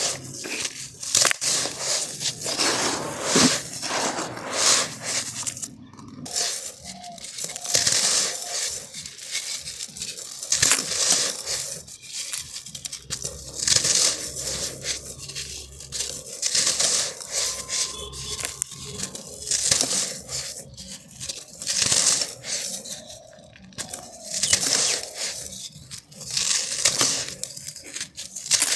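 Dusty, crunchy black sand crushed and crumbled by hand in a clay pot: gritty crunching in irregular bursts, a few a second, with short pauses between handfuls.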